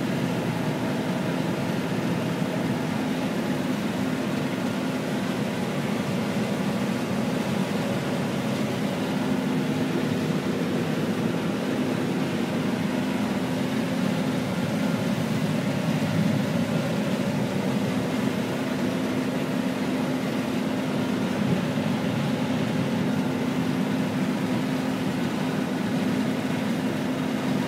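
John Deere 9500 combine running steadily while harvesting corn: its engine and threshing machinery make a constant, unchanging drone with a steady low hum.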